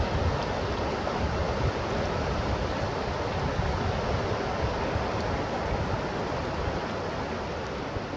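Steady rush of flowing water: an even noise with a low rumble beneath it.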